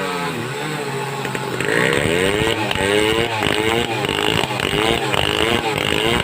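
Home-assembled two-stroke chainsaw engine revving, its pitch rising and falling again and again, roughly once a second.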